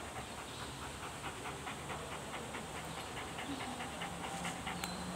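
Large white curly-coated dog panting quickly and rhythmically, about four to five breaths a second.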